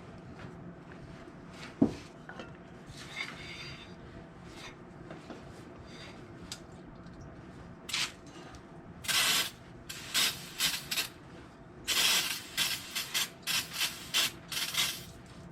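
A single sharp knock about two seconds in. From about eight seconds comes a run of quick scraping strokes by hand, each a fraction of a second long, on a tractor cultivator's hydraulic lift cylinder being taken apart.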